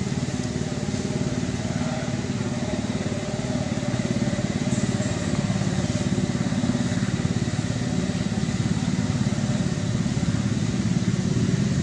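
A small engine running steadily at an even pitch throughout.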